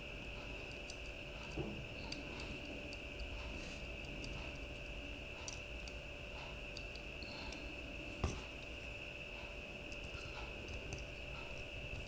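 Small clicks and taps from a metal portable M.2 SSD enclosure being fitted together by hand, its end cap pressed into place, with one sharper click about eight seconds in. A steady high-pitched whine runs underneath.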